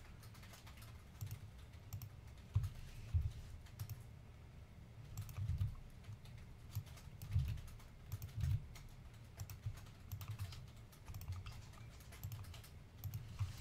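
Typing on a computer keyboard: an uneven run of key clicks, with some keystrokes landing harder than others.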